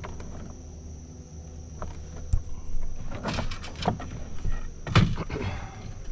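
A few sharp knocks and clicks of gear being handled in a small boat, the loudest about five seconds in, over a steady high-pitched insect drone.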